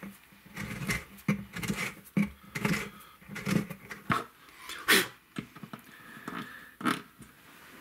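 Tapered hand reamer scraping wood as it is turned back and forth in a guitar bridge pin hole, enlarging and chamfering the hole so the bridge pin sits flush. The strokes are short and uneven, roughly two a second, with one louder scrape about five seconds in.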